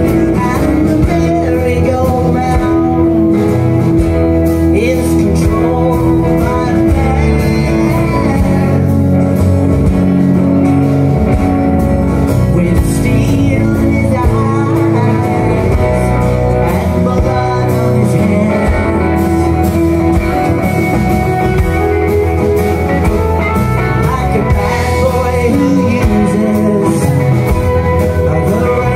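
Live band playing an instrumental break of a blues-tinged country-rock song: electric guitar over strummed acoustic guitar with a steady beat, loud through a PA.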